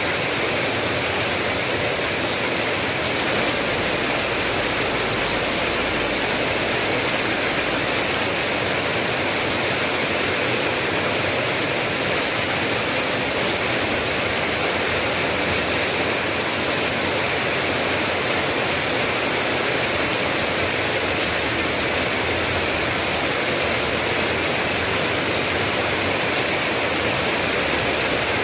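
Steady heavy rain, an even unbroken hiss of falling water.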